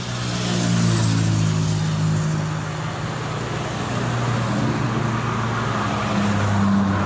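A motor vehicle's engine running with a steady low drone, swelling over the first second and then holding.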